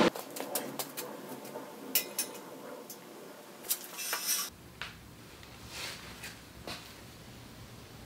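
Light metallic clinks and taps of steel tubing and parts being handled and set in place on a steel frame jig. The taps are scattered and irregular, busiest in the first half, then sparser.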